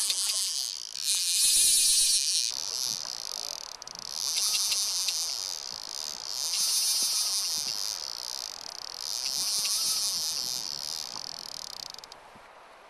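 A fly reel's drag buzzing as a hooked Atlantic salmon runs and pulls line off the reel. It comes in about five surges of a second or two each and fades out near the end.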